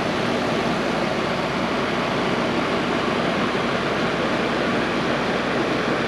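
Rec Pro Houghton 3800 rooftop RV air conditioner running in cooling mode with its shroud off: a steady fan rush with a low hum.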